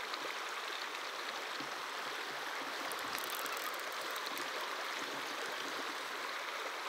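Shallow river flowing fast over a rocky riffle, a steady rush of running water close to the microphone.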